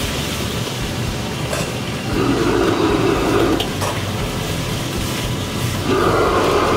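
High-output gas wok burner rushing steadily under a carbon-steel wok during stir-frying. The noise surges louder about two seconds in and again near the end as the wok flares up in flames. A metal ladle knocks against the wok a couple of times.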